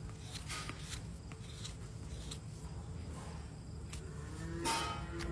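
A hoof knife paring the sole of a cow's claw in short, irregular scraping strokes over a steady low rumble. The loudest stroke, about four and a half seconds in, carries a brief squeal.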